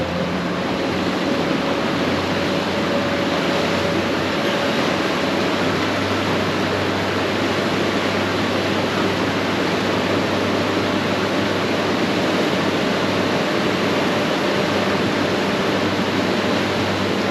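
Fishing boat's motor running at speed with a steady whine that climbs slightly in the first few seconds, under a constant rush of water and wind along the hull.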